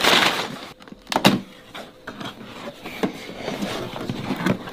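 Gift-wrapping paper tearing and rustling, then a cardboard toy box being opened and handled, with a sharp knock about a second in and lighter taps and rustles after.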